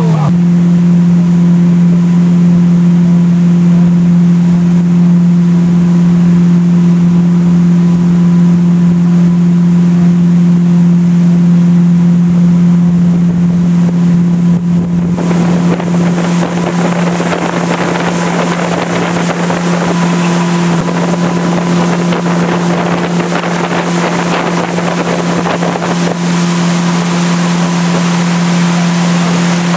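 Motorboat engine running steadily at towing speed, with wind on the microphone and the rush of the wake. About halfway through, the wind and water hiss grows louder.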